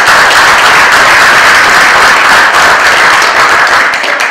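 Audience applauding, a steady dense clapping that tails off near the end.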